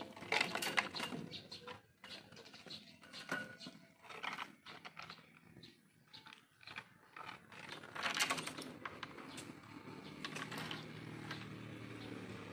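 Light metal chain clinking and rattling against a wooden bench as a chained macaque climbs and moves about, heard as scattered clicks with short bursts about half a second in, after about three seconds and around eight seconds. A low steady hum comes in near the end.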